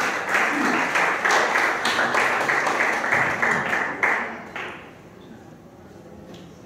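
Audience applauding, a dense patter of many hands clapping that fades out about four to five seconds in.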